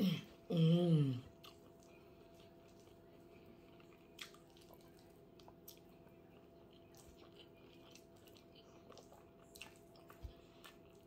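Quiet chewing and wet mouth sounds of a person eating rice and beans by hand, with scattered soft clicks. A short hummed vocal sound comes about half a second in, and a faint steady electrical hum lies underneath.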